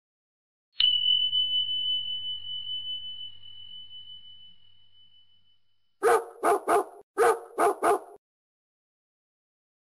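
A single high chime strikes and rings out, fading over about five seconds. Then comes a dog-barking sound effect: two quick runs of three barks.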